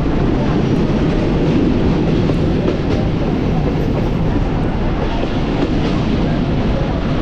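Passenger train running on the track, heard from inside the carriage at an open window: a steady loud rumble of the wheels on the rails.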